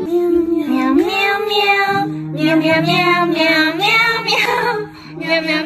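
A high-pitched voice singing a melody over musical accompaniment.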